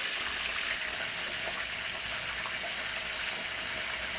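Hot oil sizzling steadily as food deep-fries, an even crackling hiss.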